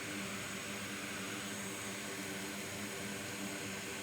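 Steady hiss of blowing air with a faint low hum, from a fan running at the repair bench.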